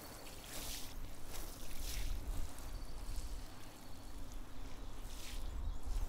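Water spraying from a garden hose nozzle onto freshly dug soil, a hiss that comes and goes in surges, with wind rumbling low on the microphone.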